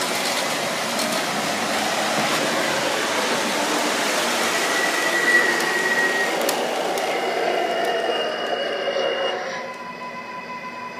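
MTH R142A model subway train running along the layout's track: a steady rolling rumble and hiss of wheels and motors. A high whine comes in about halfway through, then steady whining tones as the sound gets quieter near the end.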